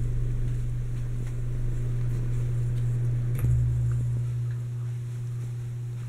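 Litex Vortex 30-inch six-blade hugger ceiling fan running, its motor giving a steady low hum. A single brief knock comes about three and a half seconds in.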